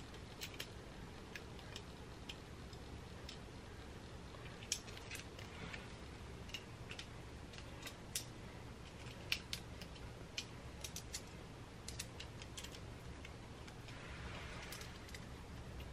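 Small, sharp metal clicks and taps, scattered and irregular, from an Ultrean air fryer's rotisserie fork and thumbscrew being handled and screwed onto the spit, over a faint steady low hum.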